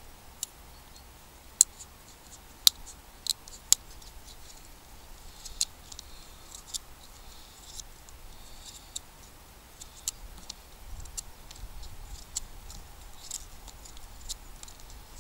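Condor Bushlore knife's carbon-steel blade whittling a stick: irregular sharp snicks and short scraping shaves as it slices slivers off the wood. The loudest few snicks fall within the first four seconds.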